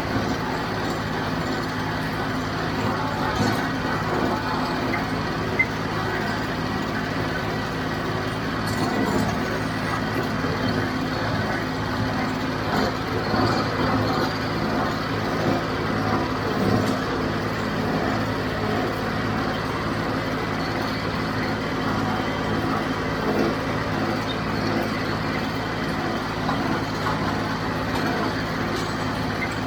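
John Deere 5055 tractor's diesel engine running steadily under field work, a constant hum with no change in speed. A single sharp knock about five and a half seconds in.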